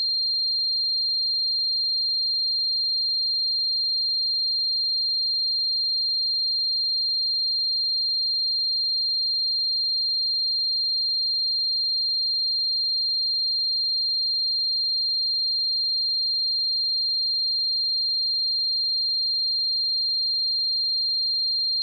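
A pure 4192 Hz sine-wave test tone, one steady high-pitched tone held at constant level.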